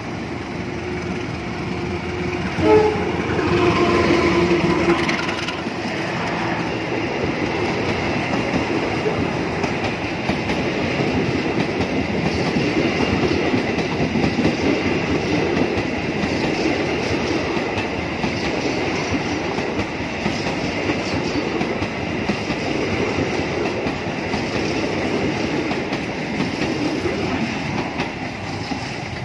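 CC 203 diesel-electric locomotive horn sounding about three seconds in and held for a couple of seconds, then the steady rumble and wheel clatter of a passenger train passing close by on the rails.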